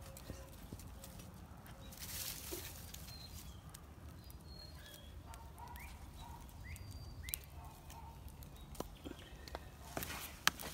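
Faint knocks and rustles of split firewood logs being laid onto a bed of coals in a brick fire pit, with a few sharper knocks near the end.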